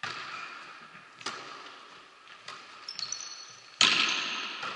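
Volleyball being struck during a rally on a hard gym court, several sharp hits, the loudest about four seconds in, echoing through the sports hall. Short high squeaks of shoes on the court come just before it.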